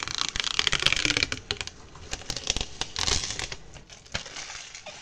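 Protective plastic film being peeled off a laser-cut acrylic panel: a crackling peel full of small rapid clicks, loudest in the first second and again around three seconds in, then fading away.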